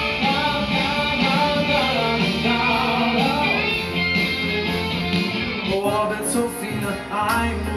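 Live stage-show music: singers with hand microphones over loud amplified pop-rock backing. About six seconds in it cuts to a different song with a strong, regular beat.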